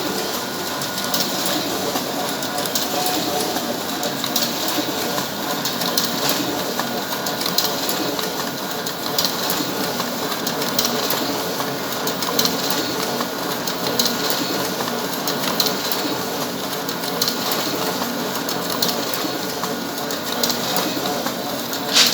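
Canon iR 5075 photocopier running a double-sided print job: a steady mechanical whir with a repeating clack about every second and a half as sheets feed through.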